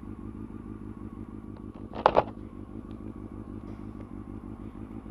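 Honda CBR600F4i inline-four engine idling steadily with an even pulse. About two seconds in there is a brief, loud clatter.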